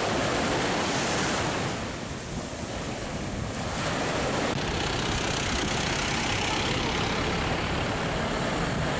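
Small waves breaking and washing up a sandy beach, with wind on the microphone. About halfway through it cuts to street traffic noise: cars and a motorbike passing on a road.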